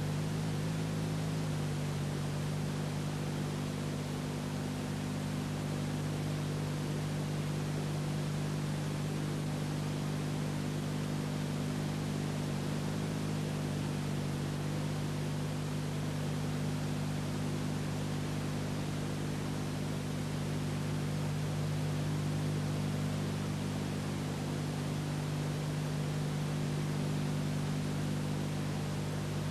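Steady hiss with a low electrical hum and nothing else: the noise floor of an old videotape transfer of silent film footage.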